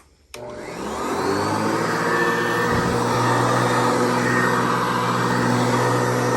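Hoover Convertible Elite U4153 upright vacuum switched on with a click. Its motor and 12-blade plastic fan spin up with a rising whine over about a second, then run steadily.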